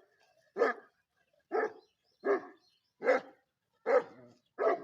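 Pakistani bully dog (bully kutta) barking steadily, six single barks a little under a second apart.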